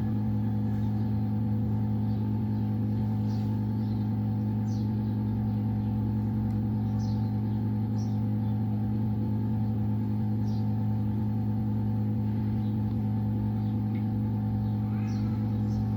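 Steady low electrical hum from phone-repair bench equipment, with a few faint short high chirps scattered through.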